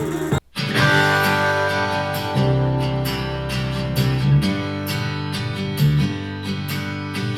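Music with strummed guitar played through a portable Bluetooth speaker. About half a second in the sound cuts out for a moment, then a new guitar passage starts.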